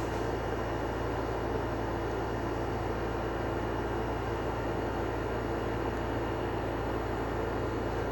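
Steady low hum and hiss that holds even throughout, with no distinct events.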